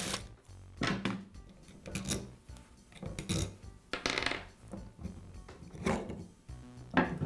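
Scattered knocks and clatters of bench work on a router motor: screws and a cordless driver set down on a wooden workbench, and the motor's upper housing worked loose from the lower half.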